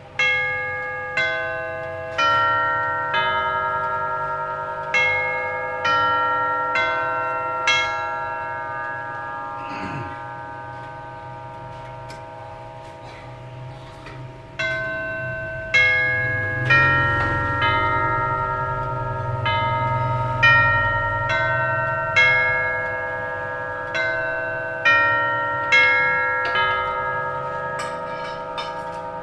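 Tubular chimes of a Howard Miller 610-172 grandfather clock, nine brass tubes struck by the Urgos movement's hammers, playing a chime tune. The notes ring on and overlap: a phrase of eight notes, a pause of about six seconds while they fade, then a longer run of notes from about halfway through.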